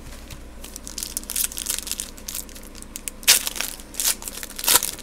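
Crinkly plastic wrapper of a 2020 Panini Score football card pack being handled and torn open: a run of crackles, with two louder ones about three and a half and nearly five seconds in.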